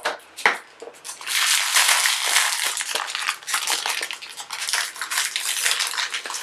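Plastic toy packaging crinkling and crackling as it is handled and opened, after a couple of sharp clicks at the start.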